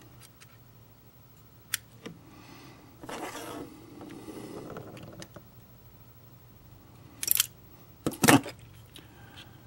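Small hand tools being handled and set down on a workbench cutting mat: scattered clicks and rustling, then two sharp knocks near the end.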